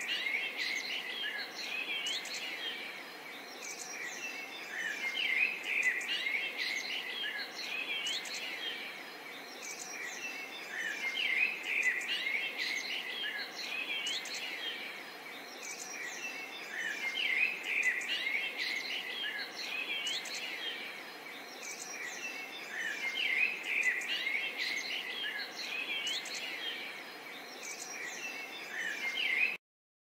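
A dense chorus of many songbirds chirping over a faint steady hiss. The same stretch of birdsong repeats about every six seconds, and it cuts off abruptly near the end.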